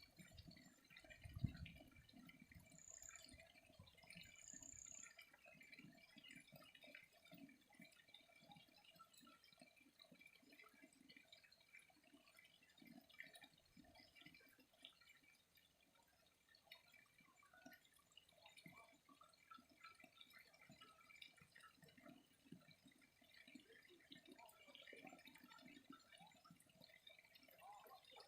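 Faint trickling, dripping water with an uneven patter of small drops, and a couple of short high chirps about 3 and 4.5 seconds in.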